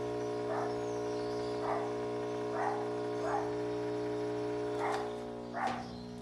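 Electrolux LTE12 washing machine drain pump running with a steady electric hum, with short rough noises about once a second over it. The pump runs as soon as the machine is plugged in, a power-board fault, typically failed MOSFETs.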